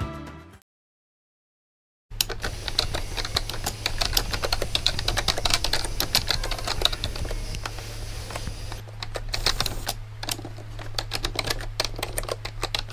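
Music fades out, followed by about a second and a half of silence. Then come rapid, uneven typing clicks, like typewriter keys, over a steady low hum.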